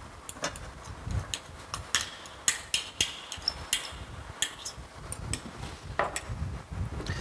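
Irregular light clicks and taps of a fork against a small bowl as beaten egg yolks are scraped out into a stainless steel bowl of whipped egg whites.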